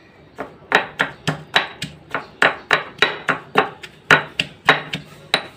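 Pestle pounding mint leaves and lemon pieces in a small white mortar: a steady run of about eighteen sharp knocks, three or four a second, muddling the mint and lemon.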